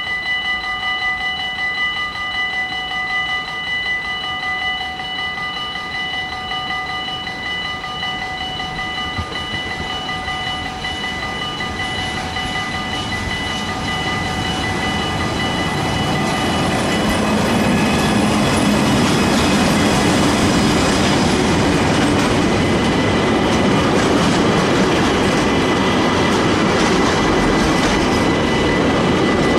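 Level-crossing warning bell ringing steadily as an electric freight locomotive approaches. About halfway through the noise of the train swells and drowns out the bell, as the locomotive passes close by and the intermodal container wagons roll past with a clickety-clack of wheels over rail joints.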